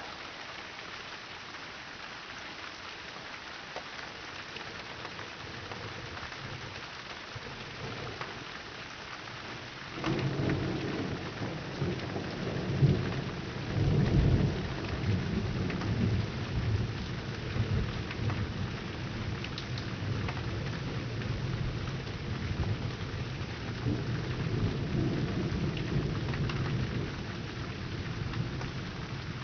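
Steady rain falling, then about ten seconds in a long roll of thunder starts up, peaking a few seconds later and rumbling on under the rain.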